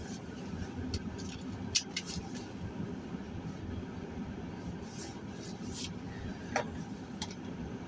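Steady low rumble of a car running, heard from inside the cabin, with a few short sharp clicks around two seconds in and again near the end.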